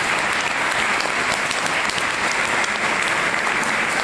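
Congregation applauding steadily, many people clapping at once.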